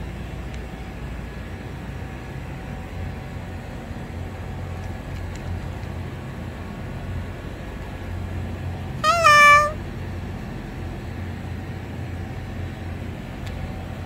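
A cat meows once, a short call about nine seconds in, over a steady low hum.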